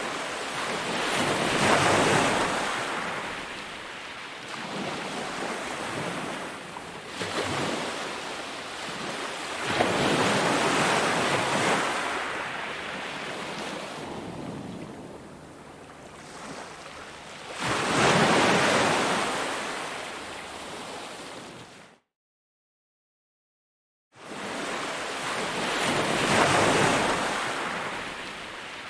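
Ocean waves breaking on a beach: a rushing surf that swells and fades as each wave comes in, every few seconds. A bit past the middle the sound drops out completely for about two seconds, then the surf resumes.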